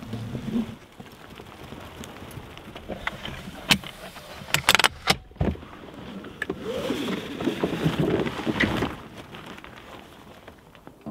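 Scattered sharp clicks and knocks, a cluster of them about five seconds in, followed by a denser stretch of rustling and knocking in the second half.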